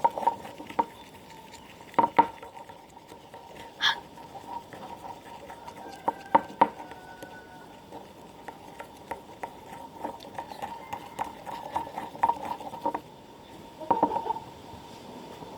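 White glue being stirred with a brush in a container, with irregular clicks and taps of the stirrer against the container, the loudest about two seconds in.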